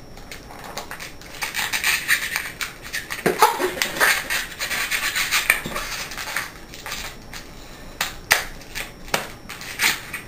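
Balloons rubbing and scraping against each other as a small twisted-balloon rose is pushed into the neck of a clear balloon, uneven and in spurts, with a few sharp strokes near the end.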